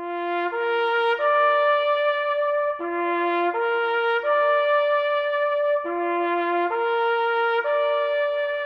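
A solo trumpet playing a slow bugle-style call: a rising three-note figure of a short low note, a middle note and a long held top note, played three times over.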